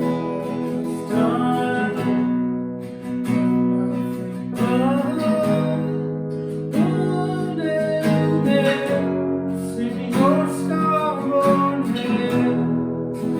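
Worship song: strummed acoustic guitar accompanying a singing voice.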